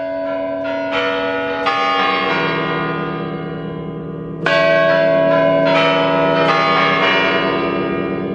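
Bell tones struck one after another and left to ring, over held low notes, with a louder set of strikes about four and a half seconds in. It is a bell soundtrack laid over the footage: the drone's camera records no sound.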